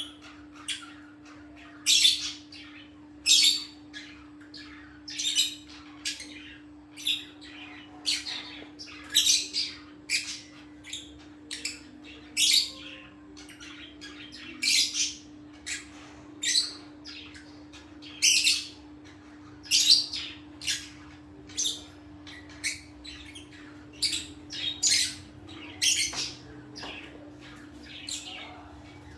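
A bird giving short, harsh calls over and over, roughly one a second at uneven spacing, with a faint steady low hum underneath.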